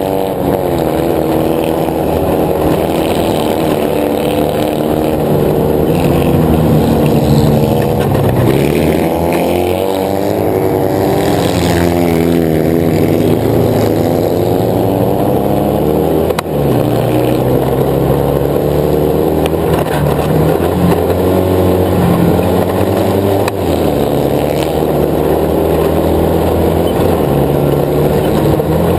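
Autocross buggy engine heard from on board at racing speed, revving up and down through the gears, its pitch repeatedly climbing and dropping. A short sharp break in the sound comes a little past halfway.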